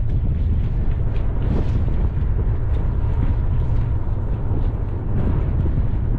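Steady wind buffeting the microphone, a loud low rumble with an even rushing haze over it.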